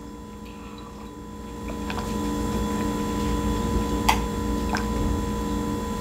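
A person drinking from a glass in gulps, the swallowing close to the microphone, with a few soft clicks.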